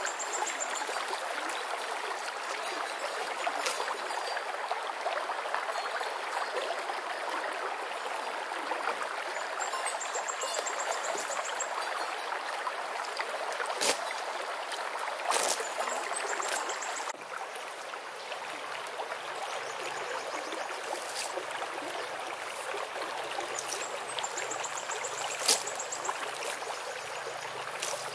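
Shallow creek flowing: a steady rush and trickle of water, with a few sharp clicks now and then.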